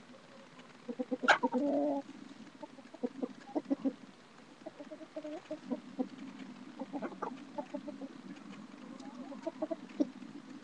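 Chickens clucking close to the microphone in short, scattered calls. About a second in there is a sharp knock followed by a louder, drawn-out call lasting about half a second.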